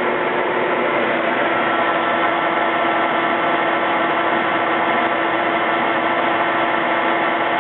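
DoAll 13 13-by-40 engine lathe running under power: a steady mechanical hum with a constant whine from its drive that holds an even pitch.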